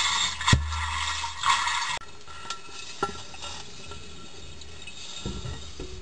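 Underwater bubbling and splashing of a scuba diver's air bubbles at an open diving bell: a loud fizzing hiss with a low thump about half a second in, which drops abruptly to a quieter hiss with a few light clicks about two seconds in.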